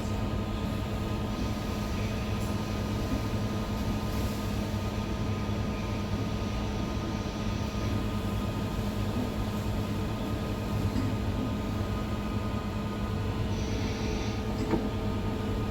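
A ferry's diesel engines running with a steady low drone and a constant hum, with no change in pitch.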